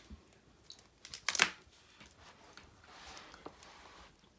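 Pokémon card booster packs being handled: a few sharp taps, the loudest about a second and a half in, then soft rustling.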